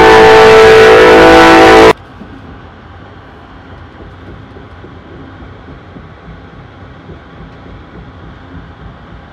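A loud, steady multi-note sound from the Amtrak train that cuts off abruptly about two seconds in. It gives way to the quieter, even rumble of the moving train heard from inside a passenger car.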